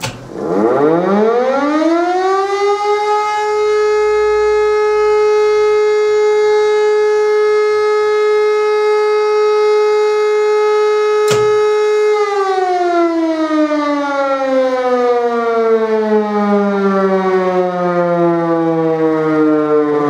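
Electromechanical civil-defence siren sounding the first tone of the German fire-alarm signal: it winds up over about three seconds to a steady wail, holds for about twelve seconds, then after a click the drive is cut and the pitch slowly falls as the rotor runs down.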